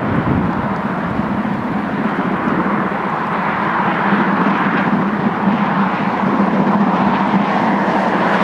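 LMS Stanier 8F 2-8-0 steam locomotive No. 48624 running past light engine, working steam, a steady loud rush of exhaust and running gear.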